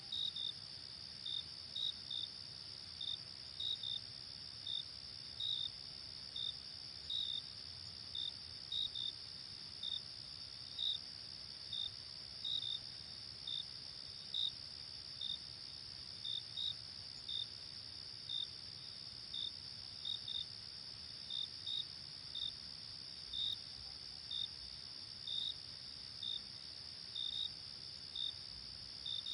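Night insects chirping: a steady high trill with short, sharp chirps repeating at an even pace, about three every two seconds.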